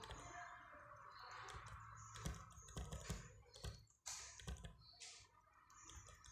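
Faint typing on keys: an irregular run of quick clicks and taps, thickest in the middle.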